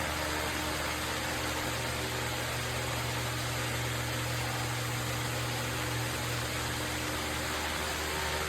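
Pasapair 20-inch industrial wall fan running: a steady rush of moving air over a low electric motor hum.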